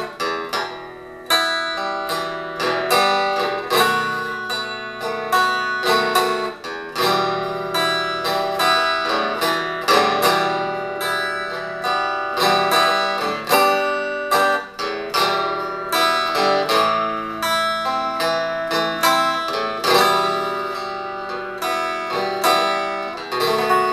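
Homemade resonator guitar, built with a roasting pan and a 1964 Rambler hubcap for its resonator, fingerpicked and played through a 5-watt tube amp housed in a 1940 Philco radio: a continuous run of picked notes and chords.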